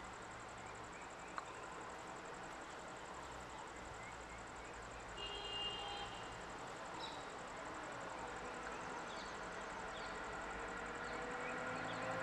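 Faint vehicle engines idling under steady outdoor noise, with a few short bird chirps; an approaching van's engine grows louder near the end.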